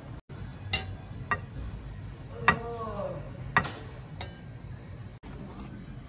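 Kitchen knife knocking and tapping on a plastic cutting board while fish is sliced: a handful of sharp, separate clicks, the loudest about two and a half seconds in.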